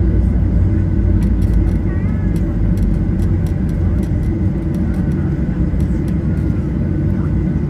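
Jet airliner cabin noise heard from inside the passenger cabin: a steady, loud low rumble of engines and airframe, with a faint steady whine above it.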